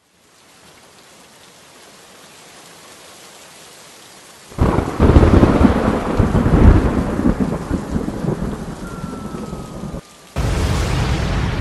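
Rain hiss that slowly swells. About four and a half seconds in, a loud rolling thunderclap starts suddenly and dies away. After a short gap, a burst of harsh rain noise cuts in and stops abruptly.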